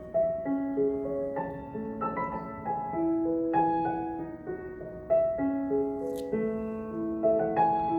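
Background piano music: slow sustained notes and chords in a phrase that repeats about every five seconds.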